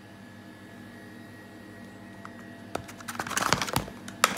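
Small objects handled and set down on a stainless steel worktop: a quick run of clicks and clatter starting after about two and a half seconds, then one sharp tap near the end, over a faint steady hum.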